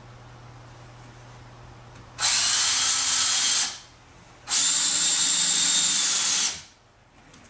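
A handheld power drill runs at steady speed in two bursts, about a second and a half and then about two seconds, on the wooden hearth base.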